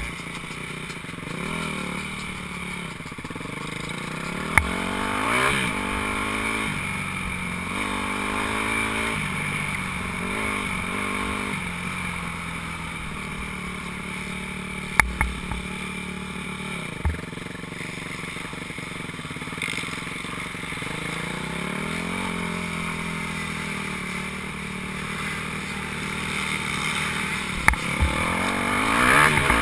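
Dirt bike engine running while it is ridden, the revs rising and falling over and over as the throttle is worked. There are a few sharp knocks, and the revs climb near the end.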